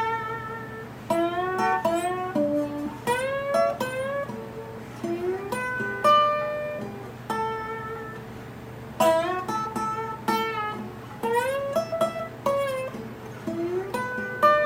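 Dobro played with a slide bar: short solo phrases whose notes often slide up into pitch, over a D, G and A chord progression, with a brief lull midway.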